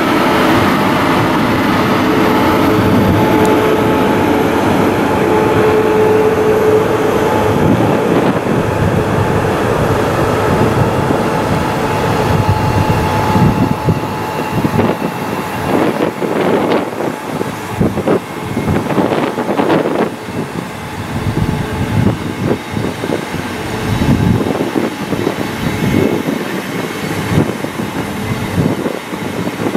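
Train of historic passenger coaches rolling slowly past behind a DR class 243 electric locomotive, the wheels clattering on the rails. A steady whine from the locomotive fades out after about eight seconds.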